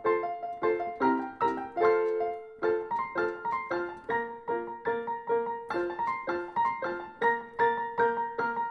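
Background piano music: a light melody of evenly paced struck notes, each dying away quickly.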